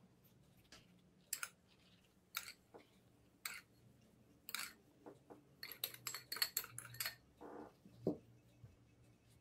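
Short, sharp scraping and tapping sounds of hands and utensils at kitchen work, about one a second at first, then a quicker flurry, ending with two duller knocks.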